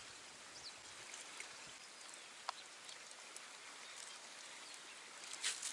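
Faint, steady outdoor hiss of wind and the river, with a couple of faint bird chirps in the first second and a half and a single soft click about two and a half seconds in.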